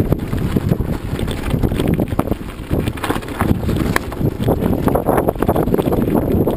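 Bicycle rolling over a loose gravel road: tyres crunching on the stones and the bike rattling with a steady stream of irregular clicks and knocks.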